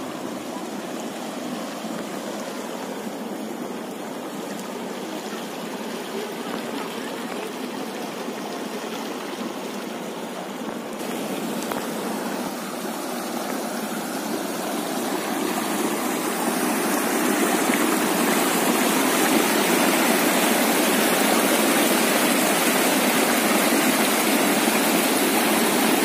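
Stream water rushing over flat rock above Dainthlen Falls, where it gathers before pouring over the edge. A steady rush that grows louder about halfway through and again a few seconds later.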